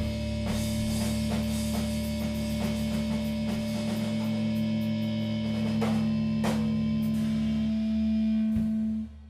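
Rock band playing: electric guitars hold a sustained, ringing chord over repeated strikes on a Mapex drum kit, with two cymbal crashes about six seconds in. The whole band stops abruptly about nine seconds in.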